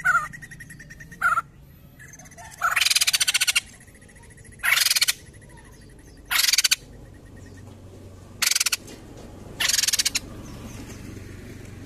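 White-crested laughingthrush giving a series of harsh, rapidly pulsed rattling calls. There are about seven bursts, each under a second long, spaced one to two seconds apart.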